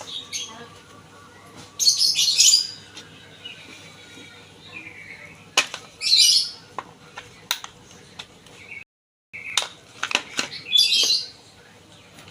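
A bird chirping in three short, loud bursts about four seconds apart, over a faint steady low hum.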